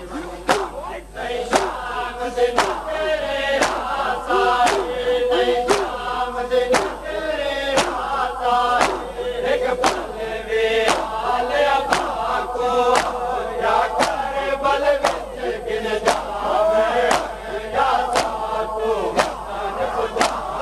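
A crowd of Shia mourners beating their chests in matam, open-hand slaps landing together in an even beat a little over once a second, while the men chant in unison to the beat of the noha.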